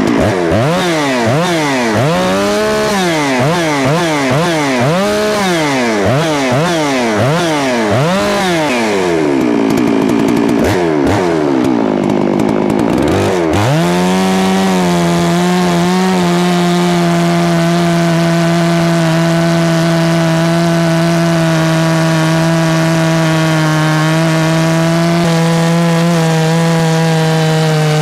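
Large two-stroke FarmMac F 669 chainsaw revved up and down repeatedly, about once a second, just after it flooded. Then, about halfway through, it goes to full throttle and holds a steady high pitch.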